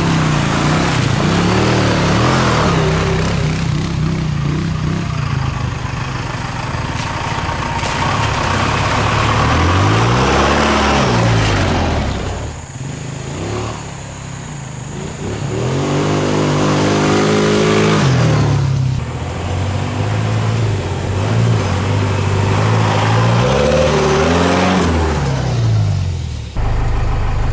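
Truck engine running and being revved, its pitch climbing and falling several times, with a brief lull about halfway through.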